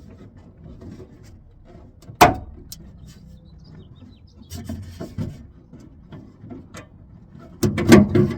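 Clicks and knocks of a small wrench and hands working the door handle and lock rod clip loose inside a Honda Civic's car door, with one sharp snap about two seconds in and a burst of louder knocking and rattling near the end.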